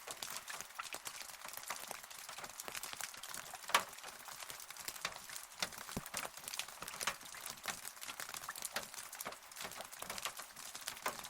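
Rain falling, heard as a light hiss with many separate drops landing irregularly, one louder drop about four seconds in. No thunder.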